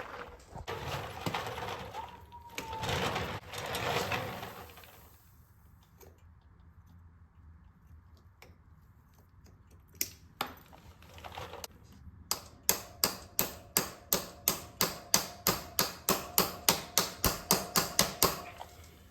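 Hand work on a motorcycle chain: a few seconds of rustling handling noise, then a fast, even run of sharp metallic clicks, about four a second, for some six seconds.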